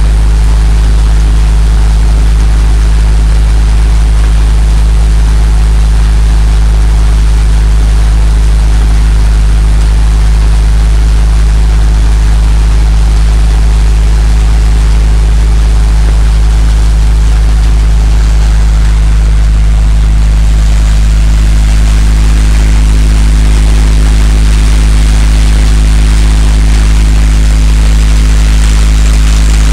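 Kartar groundnut thresher, driven by a tractor engine, running at full speed while groundnut plants are fed in: a loud, steady, low machine drone with the rushing hiss of the threshing drum and blower. About twenty seconds in, the hiss grows louder and brighter.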